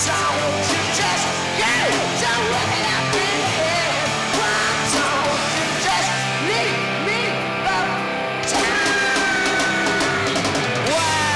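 Live hard rock band playing: distorted electric guitar, drums and a male lead singer. The cymbals drop away for a moment and crash back in about three-quarters of the way through.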